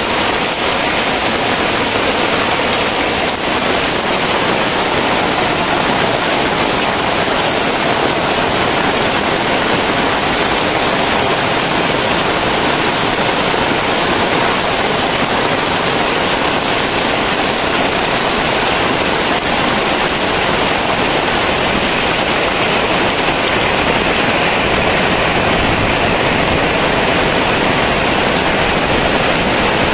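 Very heavy rain pouring down in a steady, loud roar of dense noise with no breaks.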